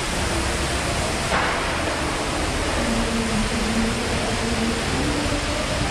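Steady, even rushing background noise of a city walk, with a brief sharper hiss about a second and a half in.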